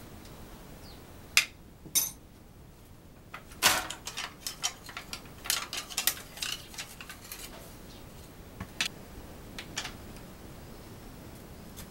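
Sharp clicks and metallic clinks of hand tools and parts being handled at the rear hub of an electric-assist bicycle. A few single clicks come first, then a quick run of clinks in the middle and a couple more near the end.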